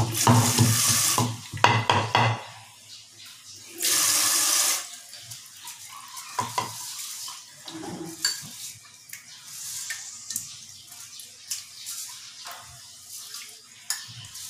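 Pestle pounding chillies and garlic in a mortar, repeated heavy thuds that stop about two seconds in. About four seconds in, a one-second hiss as salt is poured into the mortar, then faint light knocks and handling.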